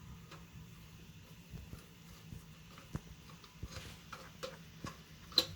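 Light, irregular clicks and taps of a screwdriver and screw working against a metal PC case, the screw going in crooked, with one sharper click near the end.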